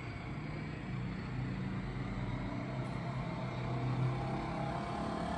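A steady low mechanical hum, like a motor or engine running.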